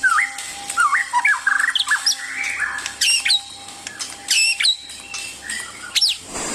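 Bird chirps and squawks: many short calls that slide up and down in pitch in quick succession, over a faint steady hum that stops near the end.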